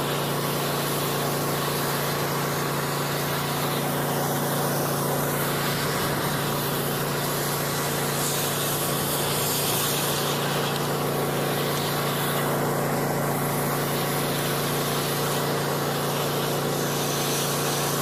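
Sewer jetter running at pressure: a steady engine drone with a constant rushing hiss of high-pressure water from a quarter-inch Warthog rotating nozzle jetting inside a 3-inch roof vent stack.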